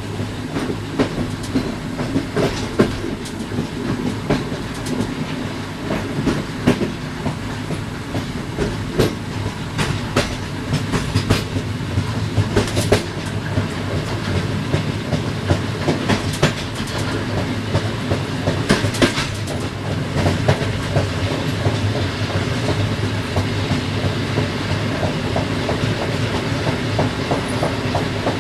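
Passenger train's wheels running over rail joints and points: a steady low rumble with irregular sharp clacks, in heavier runs through the middle, heard from inside the rear of the moving train.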